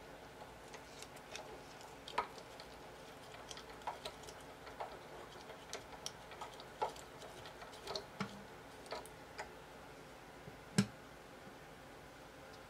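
Hand-crank string winder turning the tuning machines on a Yamaha FG-251 acoustic guitar's headstock during restringing: scattered light clicks and ticks at uneven spacing, with one louder knock near the end.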